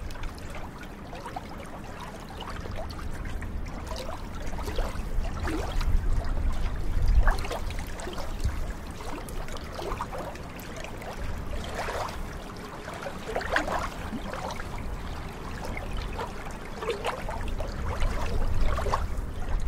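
Small waves on a glacial meltwater lagoon lapping and splashing at the shoreline, in irregular splashes of varying strength over a steady low rumble.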